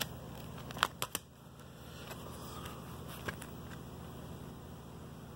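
Handling noise from DVDs in a clear plastic multi-disc case: a few sharp plastic clicks about a second in and another a little after three seconds, as the stacked discs are worked off the hub, over a faint steady hum.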